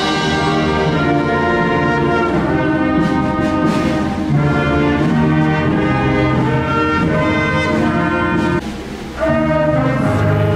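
A woman singing a national anthem into a microphone, accompanied by a student band of saxophones and flute playing sustained notes. The music dips briefly near the end, then carries on.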